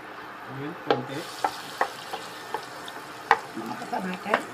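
Butter melting and sizzling in a nonstick frying pan, the hiss coming up about a second in, with sharp clicks and taps of a wooden spatula stirring it against the pan.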